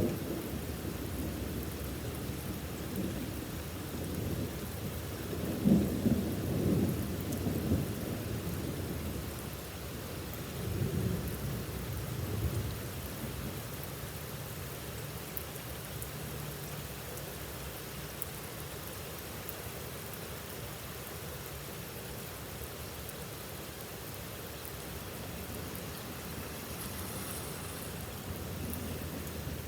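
Heavy rain pouring steadily, with two spells of deep rumbling in the first half, the louder about six seconds in.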